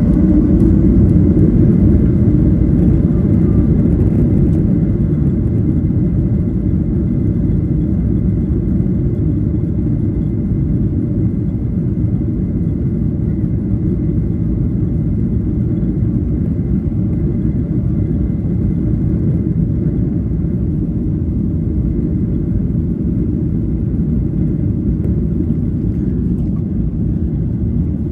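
Steady roar of a Boeing 737's jet engines and airflow heard inside the passenger cabin during takeoff, with a faint steady whine above the rumble; it eases slightly over the first few seconds.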